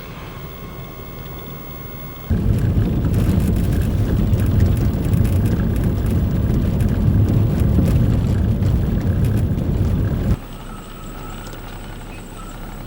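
Blizzard wind buffeting the microphone: a loud, low, even rumble that starts abruptly a couple of seconds in and cuts off suddenly near the end, between quieter stretches with a faint steady hum.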